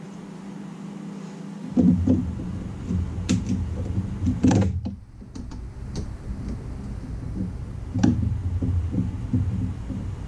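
Hand tools clinking and knocking against metal parts in an engine bay as parts are worked loose, a few sharp knocks standing out. A low hum starts about two seconds in and keeps going.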